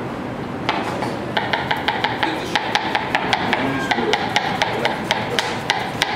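Chef's knife chopping onion on a plastic cutting board: a quick, even run of knocks, about four a second, starting a little over a second in.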